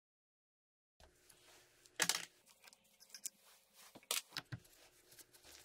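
Hand tools and small metal parts being handled at a lathe headstock: faint scraping and a few sharp metallic clicks, the loudest about 2 and 4 seconds in, after a second of dead silence.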